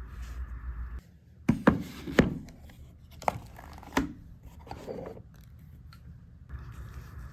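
Sharp clicks and taps of small hand tools handled on a watchmaker's bench, about five in a few seconds, with a softer rustle after them; a steady background hum at the start and end.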